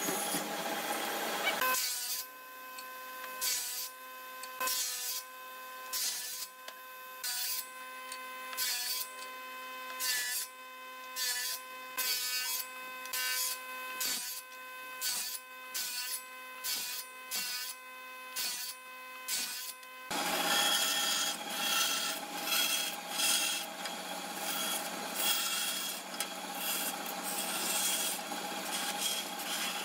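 Woodworking machines cutting wood. A boring/mortising machine runs into the wood for the first couple of seconds. Then a table saw's steady whine is broken by a quick, regular rhythm of short cuts. From about twenty seconds in, a band saw cuts wood with a denser, continuous rasping.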